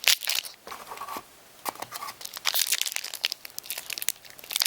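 Marvel VS System booster pack wrapper crinkling and tearing as it is handled, in irregular sharp crackles.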